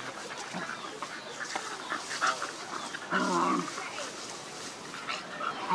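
Young dogs play-fighting in grass: scuffling with short growls and yips, and a louder, rougher growl about three seconds in.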